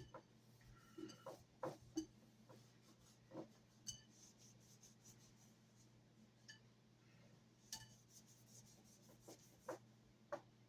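Faint handling sounds of a gun barrel and cleaning gear: scattered light clicks and taps, about a dozen, with some soft rubbing.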